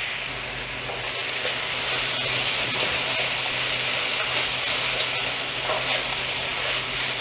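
Chopped vegetables sizzling steadily in hot oil in a pan on high flame while being stirred, with dark soy sauce and chilli sauces just added.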